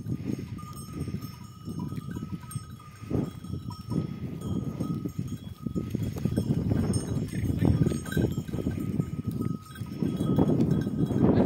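A goat herd grazing and milling about, with bells on the goats clinking and the animals shuffling among rocks, getting louder near the end.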